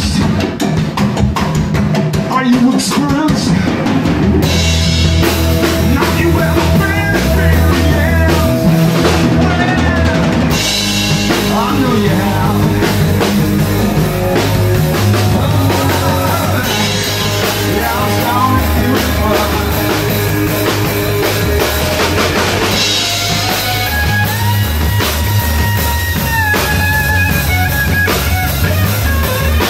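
Rock trio playing live with no vocals: a drum kit with cymbals, bass guitar and electric guitar. The guitar plays lead lines with bent notes, holding long bent notes near the end.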